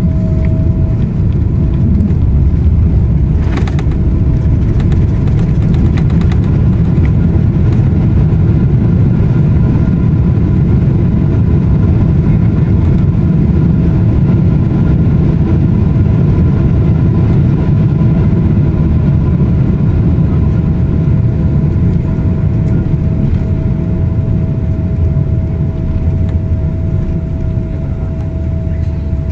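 Cabin noise of a twin-engine jet airliner on its landing rollout just after touchdown: a steady heavy rumble from engines and runway with a steady whine over it, easing slightly near the end. One sharp click about three and a half seconds in.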